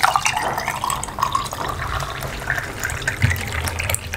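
Chilled water pouring steadily from a steel jug into a glass over ice cubes, filling it.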